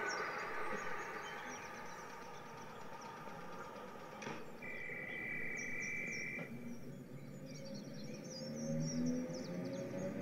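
Added railway ambience: birds chirping over a low background. There is a knock about four seconds in, then a steady high whistle-like tone for about two seconds. Near the end a train's low hum builds and slowly rises in pitch.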